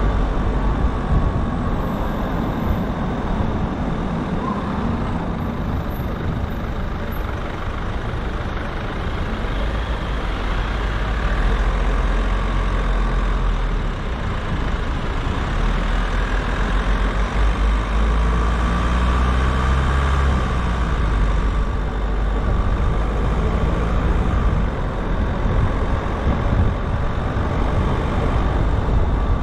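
A car driving along a city street: steady tyre and engine noise with a heavy low rumble that swells in the middle.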